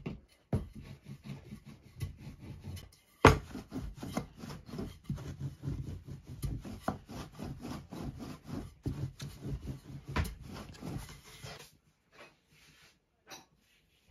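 Quick rubbing and scraping strokes on wood, one after another, with a sharp knock about three seconds in; they stop about twelve seconds in.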